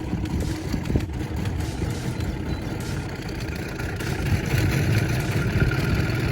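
Small boat motor running at low speed as the boat is moved along the lily pads, a steady low rumble that grows a little louder about four seconds in.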